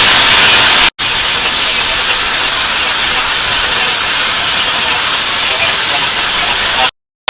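Power tool abrading the rusty steel of an old knife: a steady, loud hiss with no clear motor tone. It breaks off into brief silence about a second in and again near the end.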